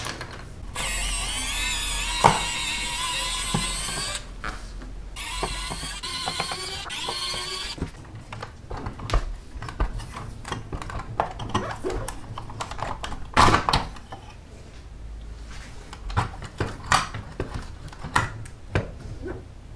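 A small electric drill runs in two spells of about three seconds each, its whine wavering in pitch and stopping abruptly. It is then followed by scattered clicks and knocks of the die-cast model car's metal body and plastic parts being handled and pulled apart from the chassis.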